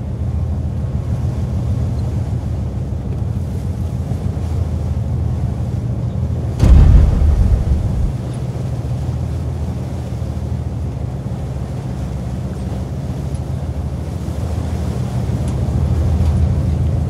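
Pilot boat's engine running steadily at speed alongside a cargo ship, with water rushing between the hulls and wind buffeting the microphone. About seven seconds in comes a sudden loud, low thump that rumbles on for a second or so.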